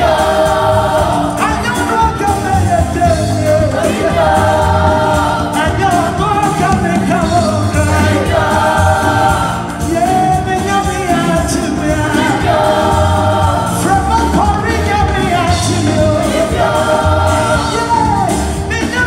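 Live gospel music: a woman sings lead into a microphone with backing vocals, over a band with drums and bass keeping a steady beat.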